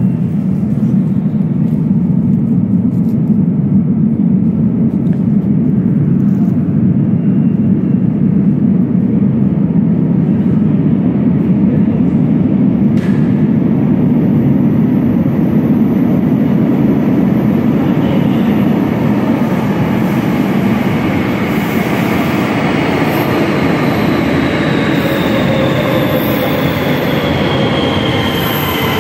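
Algiers Metro train rumbling into an underground station, the rumble steady and loud, with falling whines building over the last ten seconds as the train slows alongside the platform.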